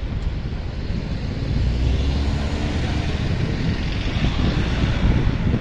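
A motor vehicle going by on the road, its engine and tyre noise swelling about a second and a half in and staying loud, over a low rumble.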